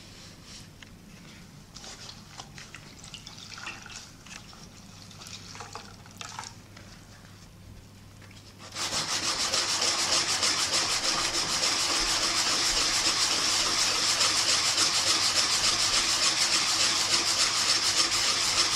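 Fine automotive sandpaper on a wooden sanding block rubbed back and forth over a hard lacquered panel inlaid with eggshell, levelling the lacquer to bring the shell back to the surface. Faint, intermittent rubbing at first, then from about nine seconds in a loud, steady, rapid scrubbing of fast sanding strokes.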